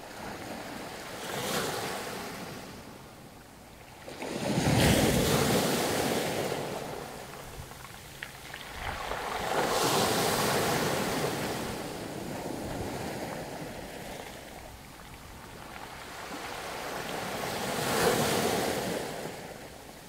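Small sea waves breaking and washing up a beach of rounded stones, in four swells of surf a few seconds apart, the loudest about a quarter of the way in.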